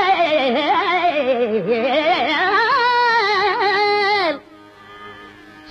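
A woman singing a long, drawn-out Carnatic vocal phrase, her pitch wavering and gliding in heavy ornaments, which breaks off a little over four seconds in.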